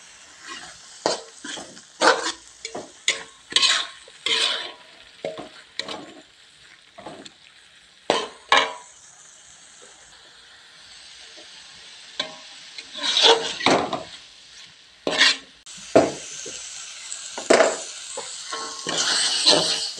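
A metal spatula scraping and knocking against a wok as a thick spice paste with bamboo shoots, tofu and tempeh is stir-fried, in irregular strokes with a short lull about halfway. Sizzling builds in the second half as the paste cooks down dry.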